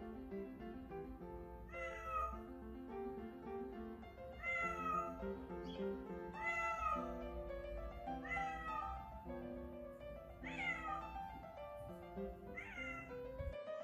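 A domestic cat meowing repeatedly, about six meows spaced roughly two seconds apart, over background music.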